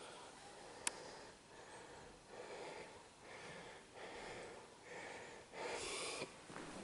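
Faint breathing close to the microphone, a run of short breaths growing stronger near the end, with one sharp click about a second in.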